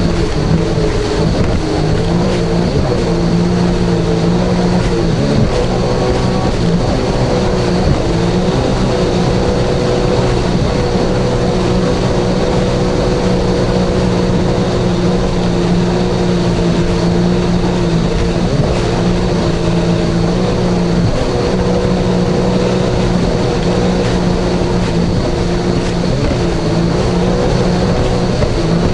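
Jet ski engine running steadily at speed over a broad rush of noise, its pitch dipping briefly a few times.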